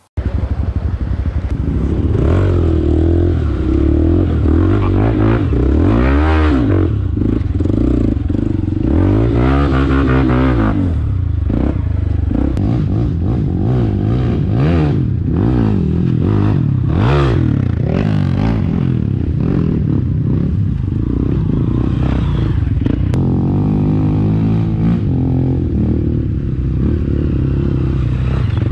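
KTM Adventure motorcycle engine running under way, its revs rising and falling several times, with bursts of clattering noise around the middle.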